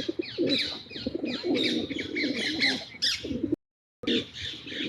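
Pigeons cooing, with small birds chirping rapidly over them. The sound drops out briefly about three and a half seconds in.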